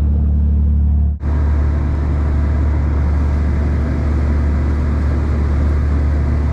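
Large fishing boat's engine running steadily underway, a strong low drone with the rush of the wake over it. There is a brief dip about a second in.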